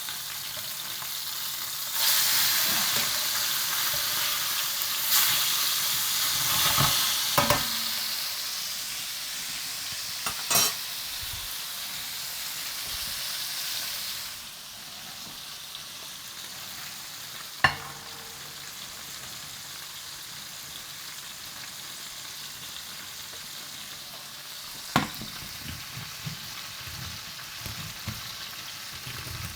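Chicken leg pieces sizzling in a frying pan as they are turned over: the sizzle jumps louder about two seconds in and settles back to a steadier, quieter sizzle about halfway through. A few sharp knocks of a utensil against the pan stand out.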